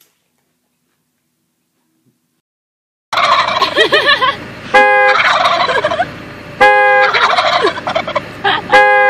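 Near silence for about three seconds, then several wild turkey toms gobbling in a loud, continuous chorus. The gobbling is cut three times, about two seconds apart, by a short, loud two-note beep.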